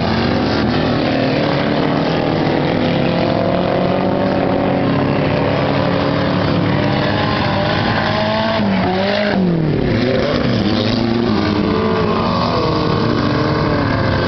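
Race car engines running hard, their pitch rising and falling as they accelerate down the straight and ease off for the turn. About nine seconds in, one engine drops sharply in pitch and then climbs again.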